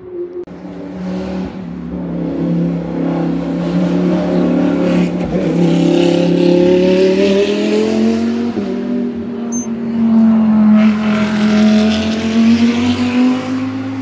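Racing car engine at full throttle on a hillclimb, its pitch rising and dropping as it changes gear. It grows louder over the first few seconds, stays loud through the middle and fades slightly near the end.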